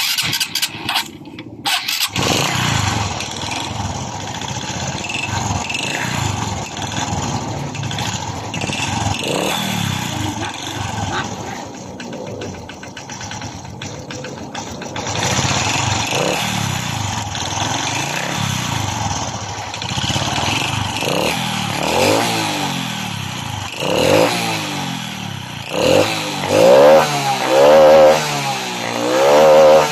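Honda RS125 Fi's single-cylinder four-stroke engine cranked and catching in the first two seconds, then running and revved up and down repeatedly, the revs coming closer together and louder near the end. The engine has a loud knocking from its bottom end that the title calls piston slap, though the mechanic weighs it against a bad connecting rod.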